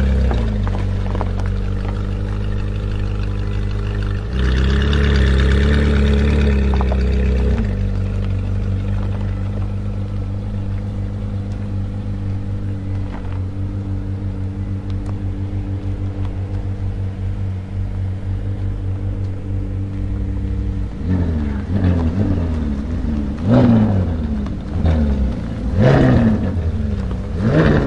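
Ferrari 458 Speciale's V8 breathing through an aftermarket Fi exhaust, idling steadily with a louder stretch of several seconds early on. Over the last several seconds it gives a series of quick throttle blips, the pitch rising and falling, with sharp peaks.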